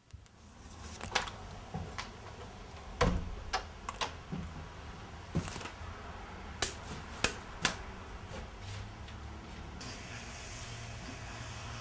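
A series of sharp, irregular knocks and clacks, about a dozen spread over several seconds, over a steady low hum; a soft hiss joins near the end.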